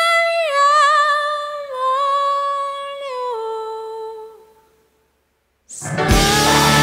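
A woman singing alone into a microphone with no accompaniment: a few long held notes that step down in pitch, with some vibrato about a second in, fading out about four and a half seconds in. After a second of silence the full band comes in loudly near the end.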